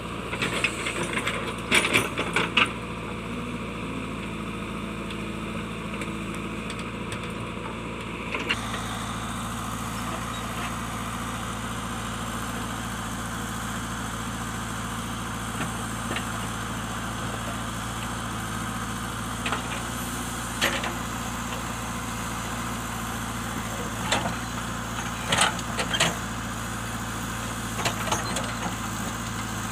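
JCB backhoe loader's diesel engine running steadily, with sharp metallic knocks now and then: a cluster about two seconds in and several more in the second half.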